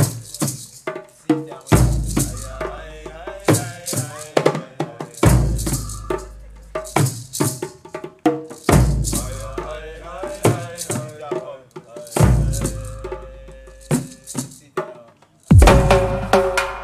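Background music with shaker-like percussion, a melodic line and a deep bass note about every three and a half seconds.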